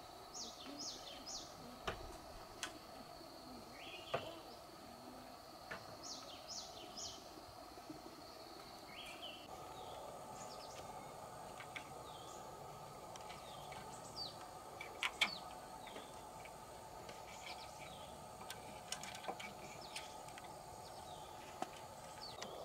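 Birds calling in quick groups of three or four falling chirps over a steady faint background hum, with scattered sharp clicks and light knocks from bamboo poles being handled and binding wire being twisted with a hooked rod at a bamboo joint.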